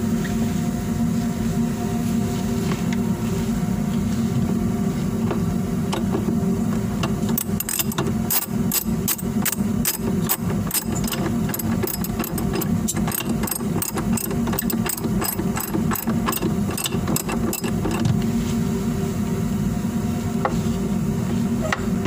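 A steady low mechanical hum runs throughout. From about a third of the way in to about three-quarters through, there is an irregular run of sharp metal clicks, three or four a second, from a hand tool working on the washing machine's motor mounting.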